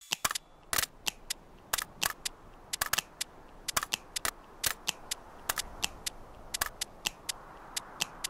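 A rapid, irregular run of sharp clicks, about three to five a second, over a faint steady hiss.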